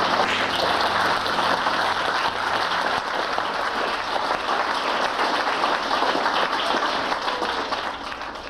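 Theatre audience applauding, a steady spread of clapping that fades out near the end.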